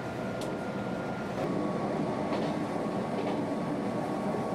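Electric commuter train running on the track: a steady rumble with a faint whine that drops in pitch about a second and a half in, and a few light clicks of the wheels on the rails.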